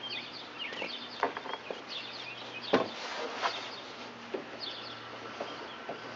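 Scattered light clicks and knocks of a nut and bolt against metal inside a Chevy Astro van door while a nut is being started by feel, the loudest a sharp knock almost three seconds in. Birds chirp in the background.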